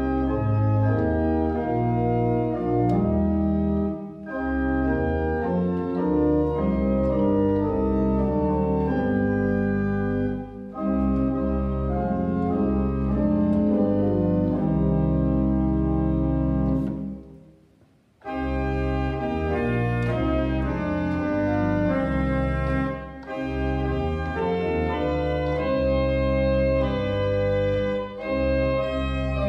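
Church pipe organ playing a slow piece in sustained chords over deep bass notes. The music stops for about a second a little past the middle, then starts again.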